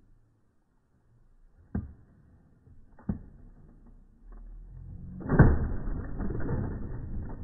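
Two sharp knocks from a backyard trampoline as a person bounces, then a louder crash as the body slams onto a vinyl fence, followed by a noisy rumble.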